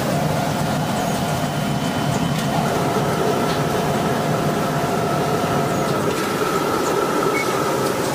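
Automatic shirt-ironing machine running: a steady mechanical rushing noise with a faint hum held over it and a few light ticks.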